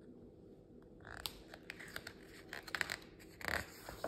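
Paper handling on a picture book: soft scratches and clicks of fingers on the page from about a second in, then a louder paper rustle near the end as the page is turned.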